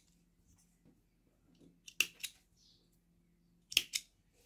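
Small scissors snipping through crochet thread: a quick double snip about two seconds in and another near the end.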